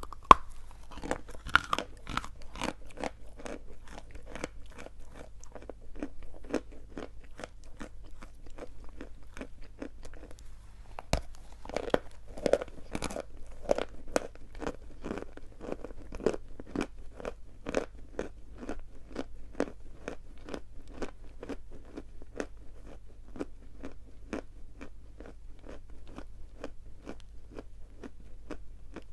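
A person biting and chewing pieces of edible chalk of the coconut ("Kokos") sort, making a steady run of dry crunches about two to three a second. There is a harder bite right at the start and another about eleven seconds in.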